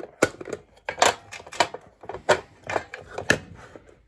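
Irregular sharp clicks and knocks, about seven in four seconds, of hard plastic and metal parts of a toasted sandwich maker being handled during its repair.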